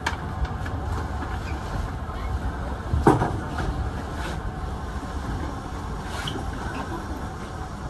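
Kintetsu 2000 series electric train running slowly, heard from inside the driver's cab: a steady low rumble of wheels and running gear, with a single sharp knock about three seconds in.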